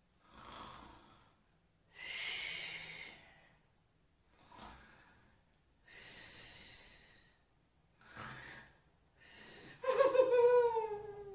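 A woman taking about six long, heavy sleepy breaths, in and out, ending about ten seconds in with a loud voiced sigh that falls in pitch.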